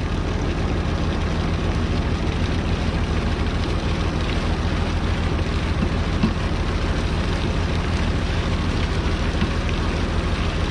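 Fishing boat's engine running steadily, a low even drone under a wash of noise.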